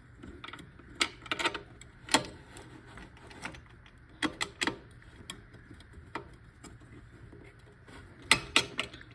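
Drill press being adjusted by hand: scattered sharp mechanical clicks and knocks. There is a single click every second or so, and a quick cluster of several clicks near the end.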